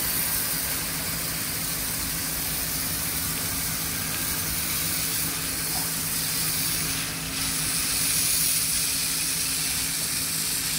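Battery-powered sprayer's pump running with a steady hum while its water jet hisses against solar panel glass. The sound dips briefly about seven seconds in.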